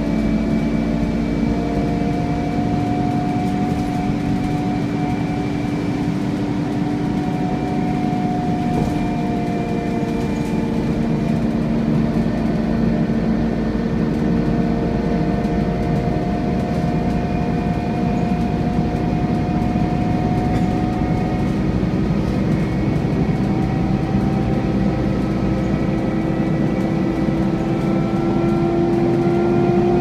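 Scania N230UD Enviro400 double-decker bus driving, heard from inside on the upper deck: a steady whining drone, the vacuum-cleaner-like 'hoovering' sound, made of several steady tones that slowly rise and fall with speed and climb a little near the end.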